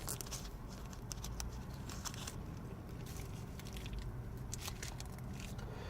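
Crinkling and scattered crackles of a trading-card pack wrapper being worked at by hand as it is forced open.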